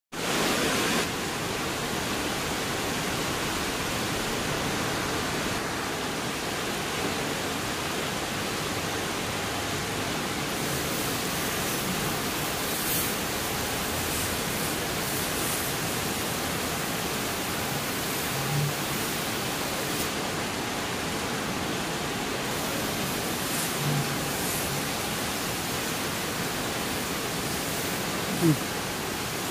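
Large dual-head CO2 laser cutting machine running: a steady, even rushing noise, with a few faint brief sounds and one sharper short sound near the end.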